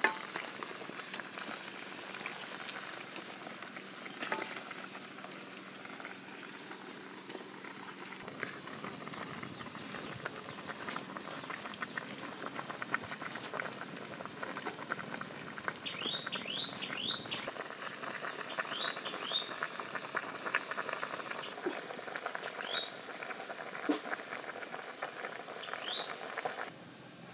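Chicken soup boiling hard in a metal wok over a wood fire: steady bubbling with many small pops.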